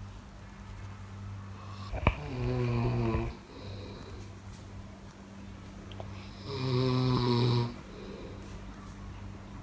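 A person snoring: two loud snores about four and a half seconds apart, each lasting about a second, with softer breathing between them.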